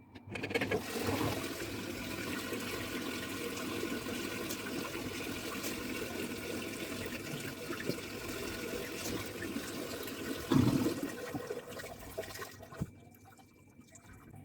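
Water pouring into the tub of an LG top-load washing machine as it fills, starting about half a second in and stopping near the end, with one louder low thud about two-thirds of the way through.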